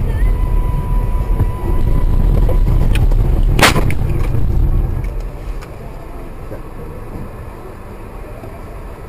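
Vehicle noise with a heavy low rumble, as heard from a car-mounted camera, with a thin steady tone over it at first. One loud bang comes about three and a half seconds in, and the rumble is quieter from about five seconds on.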